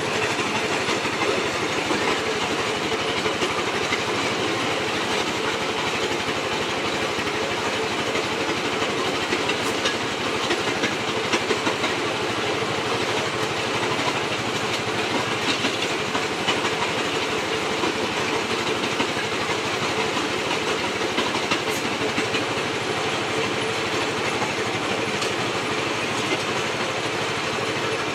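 Brick-breaking machine running: a belt-driven jaw crusher powered by an 8.5 hp engine, crushing bricks into chips. It makes a steady mechanical din with continuous clatter and occasional louder knocks as pieces are broken.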